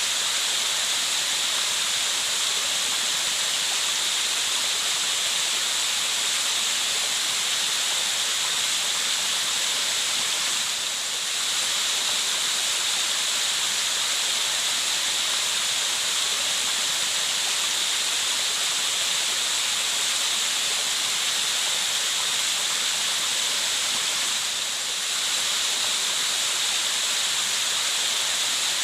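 Steady, even rushing hiss that is brightest in the treble. The level dips briefly twice, about eleven seconds in and again near twenty-five seconds.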